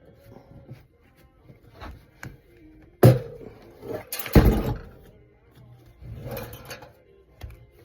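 Knocks and clatter of a fan being taken apart by hand: small clicks and rubbing, a sharp knock about three seconds in and a louder clatter a second later, then softer handling.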